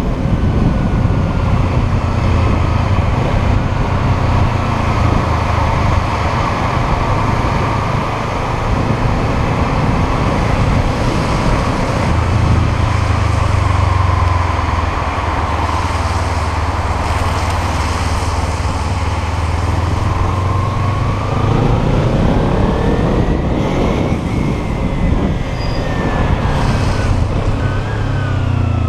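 Kawasaki Ninja 300's parallel-twin engine running under way, mixed with wind and tyre noise on the wet road. About two-thirds of the way in the engine note climbs steeply in pitch as it revs up, then falls back in steps toward the end.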